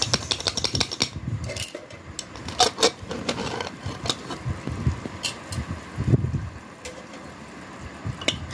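Aluminium pressure cooker being opened: scattered metallic clicks and knocks as the lid is worked off, then a metal ladle clanking and scraping in the pot while stirring the cooked mutton.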